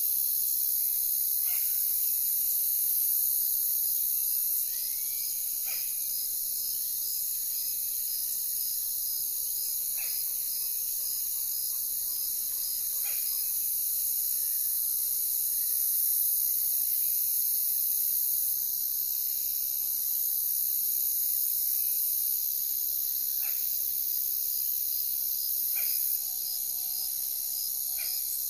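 Dense insect chorus: a steady high buzzing with a regular chirp pulsing about twice a second, broken every few seconds by short sharp calls.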